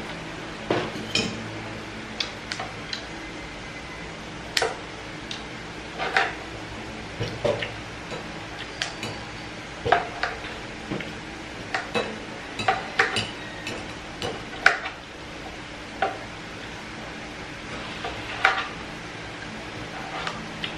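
Metal fork and kitchen scissors clinking and scraping against a steel wok as food is cut up in the pan: irregular sharp clicks, roughly one or two a second, over a steady low hum.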